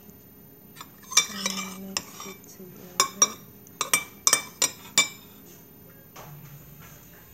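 Metal spoon stirring chunks of avocado in a ceramic bowl, scraping and then striking the bowl's side in a string of about ten sharp ringing clinks, which stop about five seconds in.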